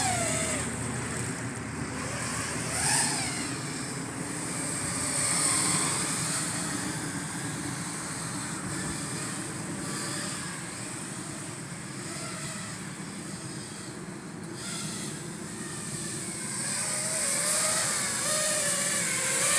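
FPV quadcopter's motors and propellers whining, the pitch rising and falling with the throttle over a steady rush of air.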